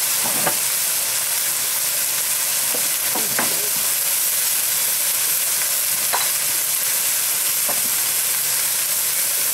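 Sliced white and red onions frying in a carbon-steel wok on a gas burner: a steady sizzle with a few faint pops as they brown.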